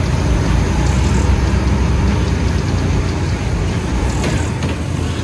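Drift kart driving across a slick indoor track: a loud, steady low rumble from the kart.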